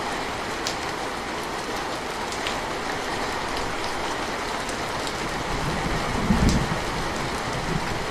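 Steady rain falling, an even hiss with scattered drop ticks. A brief low rumble comes about six seconds in.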